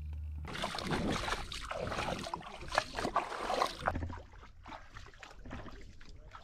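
A person wading through shallow water, feet splashing and sloshing with each step. It starts suddenly and is loudest for the first few seconds, then turns quieter.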